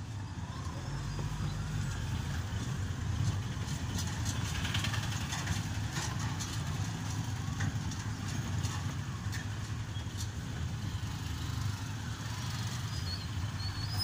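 Slow town street traffic: a steady low rumble of vehicle engines idling and running, including motorcycles, with scattered clatter and clicks.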